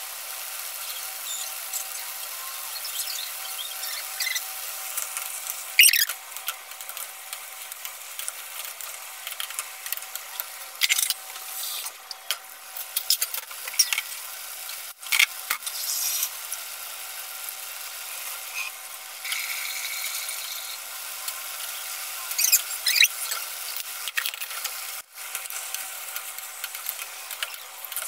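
Marinated chicken pieces frying in oil and butter in a stainless steel pan, with a steady sizzle. A wooden spatula scrapes and stirs against the pan now and then, in short squeaky strokes.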